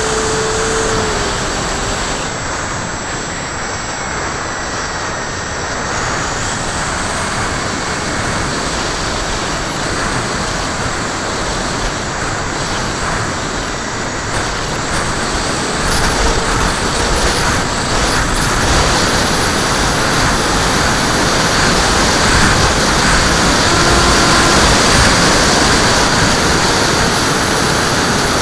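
Wind rushing over the onboard camera of a HobbyKing Skyfun model plane in gusty flight, a steady loud noise that strengthens in the second half. A faint electric motor tone sits underneath and drops in pitch about a second in.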